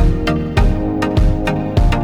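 Background music with a steady, strong beat a little under two beats a second, over sustained pitched instrument tones.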